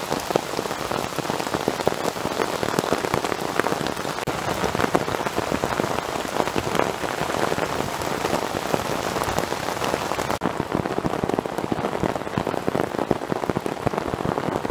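Torrential rain falling steadily on a military poncho shelter overhead: a dense, even patter of countless drops.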